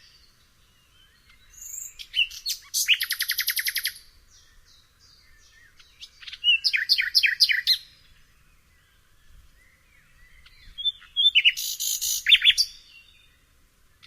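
Nightingale singing: three separate song phrases, each a fast run of rapidly repeated notes, with pauses of two to three seconds between them.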